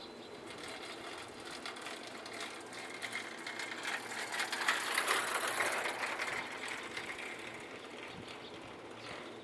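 A passing vehicle's rapid clattering noise swells, is loudest about five seconds in, then fades away.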